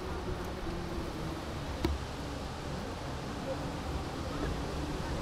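Street noise heard from a moving bicycle: a steady rumble of traffic and wind on the microphone, with one sharp click about two seconds in.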